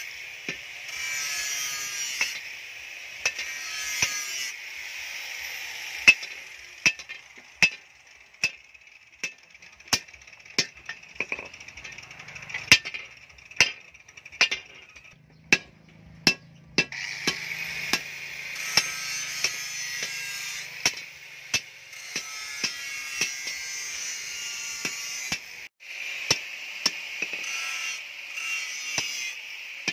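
Hand hammer striking the red-hot end of a spring-steel bar on a round steel post, forging it over into a spring eye: sharp metallic blows at a steady pace of roughly one a second. A continuous high-pitched background noise runs underneath and drops out briefly near the middle.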